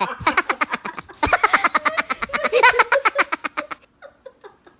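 Hearty laughter, a fast run of 'ha-ha-ha' pulses that stops about four seconds in.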